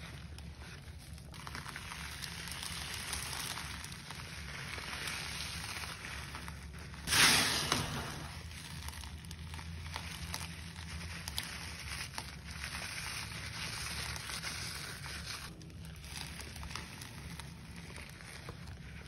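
Rubber-gloved hands squeezing and crunching gritty speckled laundry powder and a powder-caked sponge: continuous gritty crackling, with one loud crunch about seven seconds in.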